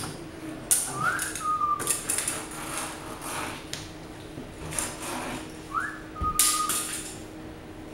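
A short whistle that swoops upward and then holds a steady note, heard twice about five seconds apart. Sharp knocks and clatter come between and alongside the whistles.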